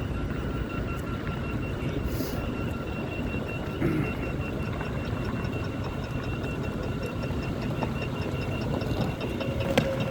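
City street ambience: a steady rumble of traffic, with a faint high tone running through it.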